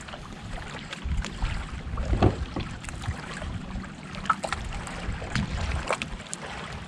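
Wind buffeting the microphone in a low, uneven rumble, with a few light knocks and clicks.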